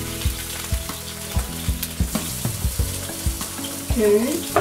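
Yeast dumplings (Dampfnudeln) sizzling in hot oil in an uncovered frying pan, with frequent small crackles and pops as the water cooks off and the bottoms crisp.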